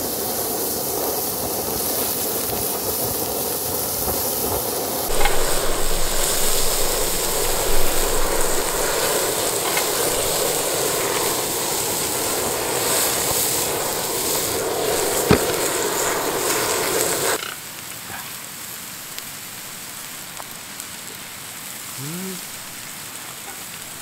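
Meat chunks sizzling on a grill pan while a handheld gas torch blasts them with a steady hiss. It grows louder about five seconds in and cuts off suddenly about three quarters of the way through, leaving a much quieter background.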